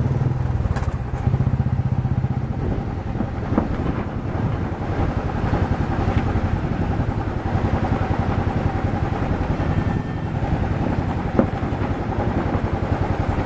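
Motorcycle engine running steadily at low revs, a dense low thumping pulse with a steady hum over it. A couple of short knocks cut in, the sharpest about eleven seconds in.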